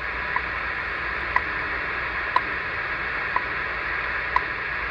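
WWV time signal on 15 MHz heard through the speaker of a Realistic DX-100 shortwave receiver: short seconds ticks, once a second, five in all, over steady shortwave hiss.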